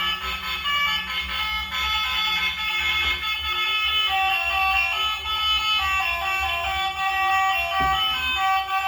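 Electronic tune from a battery-operated toy vehicle's sound chip: beeping notes that step up and down, over a steady low hum.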